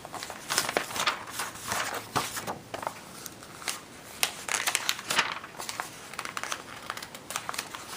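Paper rustling and crinkling as the pages of a recipe magazine are handled and turned: a run of irregular dry rustles.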